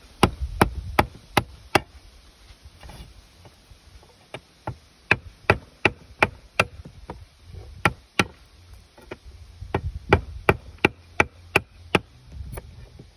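A wooden board striking the spine of a forged Kh12MF steel hunting knife again and again, batoning the blade through a plastic pipe with a metal insert on a wooden tabletop. The result is a run of sharp knocks, about two or three a second, with a lull of a couple of seconds about two seconds in.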